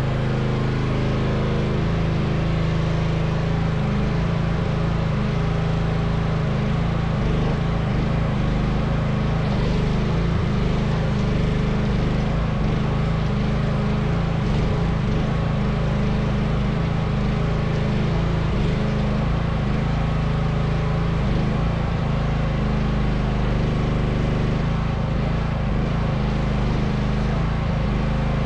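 Mini excavator engine running steadily.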